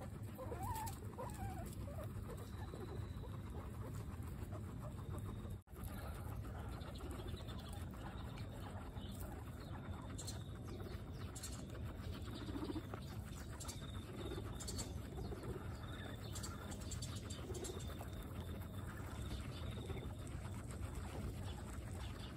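Guinea pigs munching fresh cut grass: many quick, crisp crunching clicks of their chewing over a steady low background hum. There are a few short wavering chirps in the first second or so.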